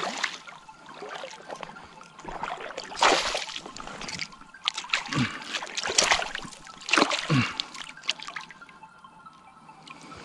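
A hooked pike thrashing and splashing at the water's surface right beside the boat. There are several separate bursts of splashing, about 3, 5, 6 and 7 seconds in, with dripping and trickling water between them.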